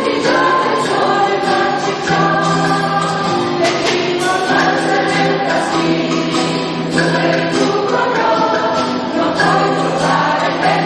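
A choir singing in harmony: several voices together on phrases of held notes that change pitch every second or so.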